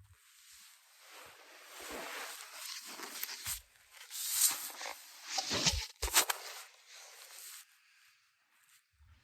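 Bedding rustling and shuffling as a sleeper shifts in bed, with a few sharper knocks around the middle; it stops about three quarters of the way through.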